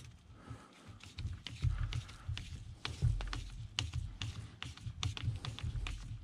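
Screwdriver turning a 1/4-inch bolt into a lock nut through a PVC pipe joint, tightening it snug: irregular small clicks and ticks of metal and plastic, over a low rumble.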